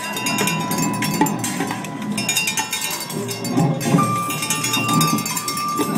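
Improvised percussion on metal pots, pans and scrap metal: many clanking, ringing strikes, with a held ringing tone under them that shifts to a slightly higher pitch about four seconds in.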